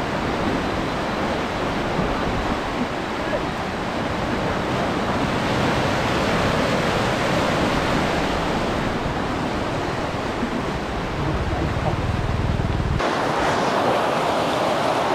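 Fast, muddy floodwater rushing and churning through a river spillway, a steady loud noise. The sound shifts abruptly about 13 seconds in.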